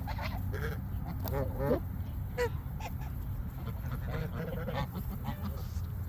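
A flock of waterfowl calling, many short calls in quick runs, with the loudest about one and a half and two and a half seconds in, over a steady low rumble.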